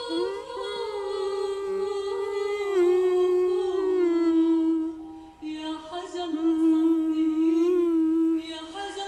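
A woman's voice singing a slow melody without accompaniment, in long held notes that waver and bend, with a short break about five seconds in.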